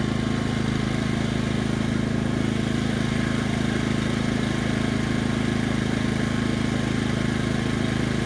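Honda EB2800i inverter generator running steadily in its standard, non-eco mode shortly after starting, with an even, fairly quiet engine hum.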